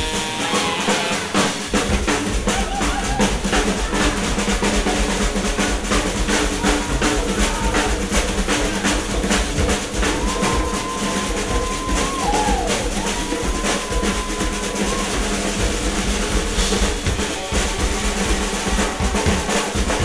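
Live band music carried by busy drumming: fast snare strokes and rolls over bass drum hits, with held low notes underneath. Around the middle a held high tone bends down and back up for a few seconds.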